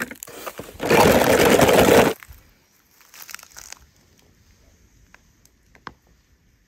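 A loud crunching, crinkling rustle about a second in, lasting just over a second, followed by a few faint crackles and a single click near the end.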